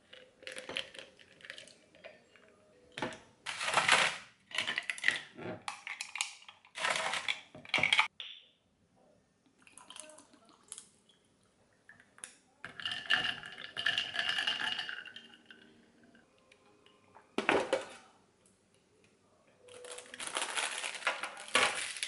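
Ice cubes dropping and clinking into a tall drinking glass in a run of sharp clicks, then water poured from a plastic bottle into the glass over ice with a ringing tone, followed by a single knock and a burst of plastic clatter.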